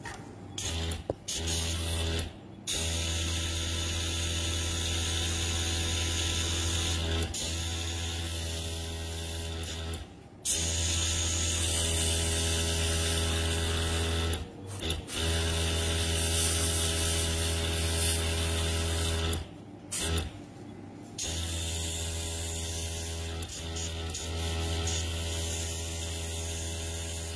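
Airbrush compressor running with a low steady hum, with the hiss of air spraying from the airbrush, cutting out for a moment several times and starting up again.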